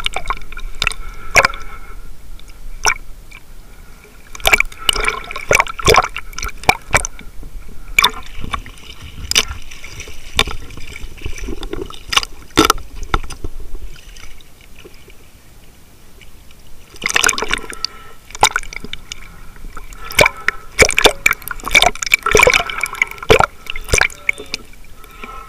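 Water splashing and bubbling against a swimmer's camera held just under and at the surface, in bursts of sharp clicks and splashes with a quieter spell a little past halfway.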